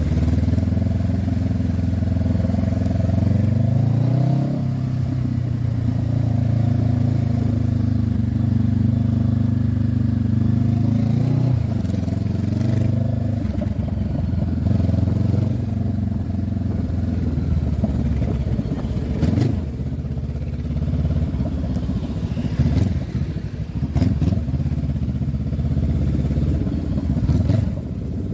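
Honda CB500F's parallel-twin engine running under way, heard from the rider's helmet. For the first dozen seconds it holds a steady note, shifting pitch about four seconds in. Then it runs lower and more unevenly, with a few sharp knocks in the second half.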